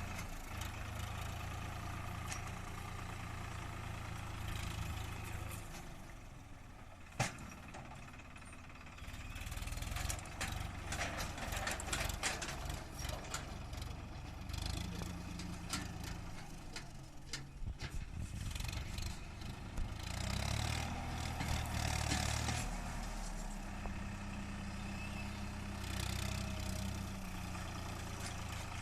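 Swaraj 963 FE tractor's diesel engine running, its note shifting several times. A single sharp knock comes about seven seconds in, and metal clanks and rattles are scattered through the middle.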